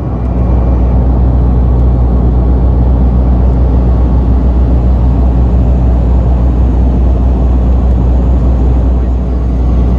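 Loud, steady cabin drone of a DHC-6 Twin Otter seaplane's turboprop engines in cruise, heard from inside the cabin: a deep even hum under a rough, rushing roar of propeller and engine noise.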